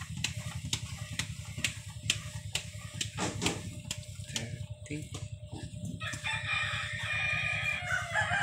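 A rooster crows once, starting about six seconds in: one long call that falls in pitch at the end. Underneath runs a steady series of light clicks, about two a second, over a low rumble.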